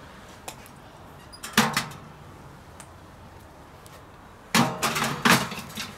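Cast-iron Dutch oven clanking against a steel Petromax Atago charcoal burner as it is set down and handled by its wire bail. There is one clank about a second and a half in, then two louder ones close together near the end, each ringing briefly.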